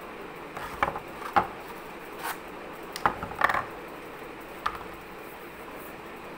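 Cardboard tubes being handled and set down on a table: a scattered series of light knocks and scrapes, the sharpest about a second and a half in and again around three and a half seconds, over a steady background hiss.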